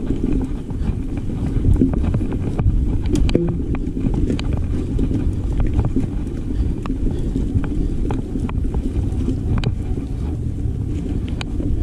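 Wind buffeting the microphone in a steady low rumble as a mountain bike rides a rough trail, with scattered light clicks and rattles from the bike.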